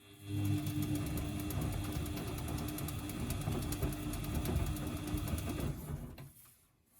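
Washing machine motor turning the drum for about six seconds and then stopping, a steady hum overlaid with a fast crackle. The crackle is put down to worn motor brushes or a failing motor.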